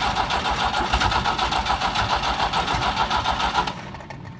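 BMW M10 four-cylinder engine being cranked by its starter motor without catching, an even, rhythmic churning that stops abruptly about three and a half seconds in. This is the first start attempt on the freshly rebuilt engine.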